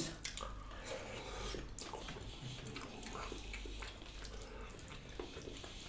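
Quiet eating sounds: chewing and small wet mouth clicks while eating fried catfish.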